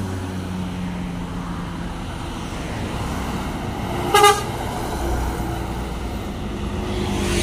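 Medium tour bus passing close by on the road, its diesel engine rumble swelling as it goes past, with one short horn toot about four seconds in.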